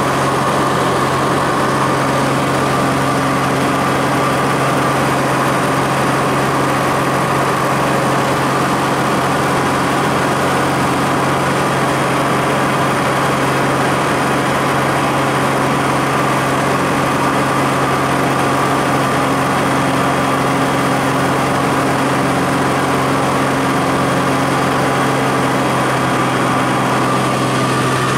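Small propeller plane's engine and propeller droning steadily, heard inside the cabin on the approach to land. A constant low hum with a steady higher tone above it, unchanging in pitch or loudness.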